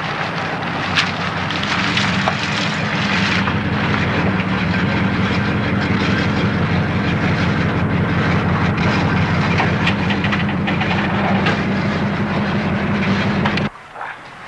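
Taxi car driving, its engine running under a loud rattling clatter from the car. The sound cuts off suddenly near the end.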